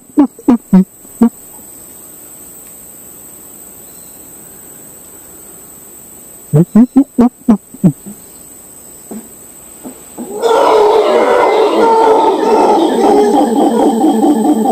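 Two sets of short, loud grunting calls, a man imitating howler monkeys, then about ten seconds in a troop of howler monkeys answers with a loud, continuous howling chorus.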